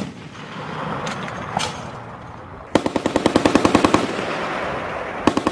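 M2 Browning .50 caliber heavy machine gun firing: a single sharp crack about a second and a half in, then a rapid burst of about a second and a quarter, and a second burst starting near the end.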